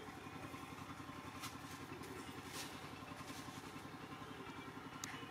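Faint engine idling steadily in the background, a rapid even low pulse, with a few light clicks.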